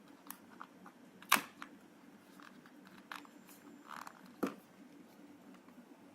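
Handling noise from unboxing a fitness band: scattered small clicks and taps of the box and its parts, the sharpest about a second in and another a little past the middle, over a faint steady hum.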